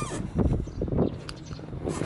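Suzuki Grasstracker Big Boy's air-cooled 250 cc single-cylinder four-stroke engine running with an uneven, pulsing beat, with no abnormal noises.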